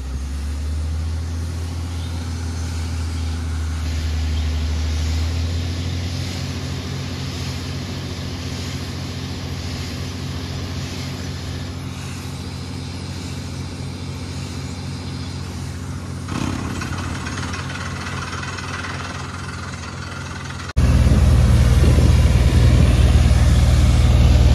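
Water-well drilling rig running steadily while boring deeper through rock, a low engine hum under a steady noisy haze. The sound thickens about 16 seconds in and jumps abruptly louder about 21 seconds in.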